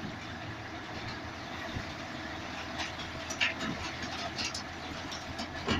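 A vehicle's engine running at low speed, heard from inside the cab as it creeps through the shuttle train's wagons, with a few light clicks and knocks in the second half.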